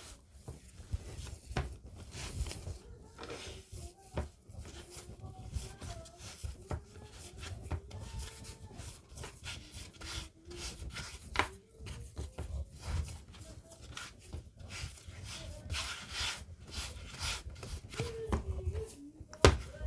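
Hands kneading and pressing a floured, buttery dough on a plastic cutting board: irregular rubbing strokes and soft thuds as the dough is worked and pushed into a ball.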